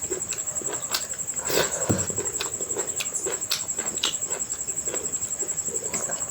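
Close-miked chewing and lip-smacking while eating rice with mutton curry: an irregular string of short smacks and clicks, over a steady high-pitched whine.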